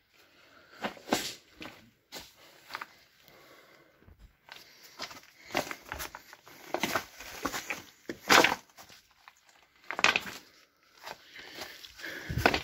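Footsteps and scuffs over loose rock and debris on a cave floor: irregular crunches and scrapes, with two louder ones about two-thirds of the way through.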